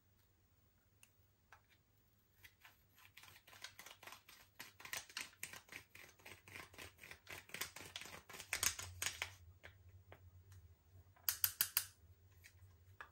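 Slime being mixed and squished, giving a rapid run of small sticky clicks and pops from trapped air that builds from a couple of seconds in and thins out, then a short quick burst of louder pops near the end.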